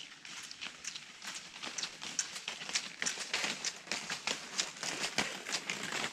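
Cross-country skis scraping and crunching over an icy, crusted trail as a skier glides past, a quick irregular patter of crackles and scrapes that grows louder in the middle as the skier comes closest.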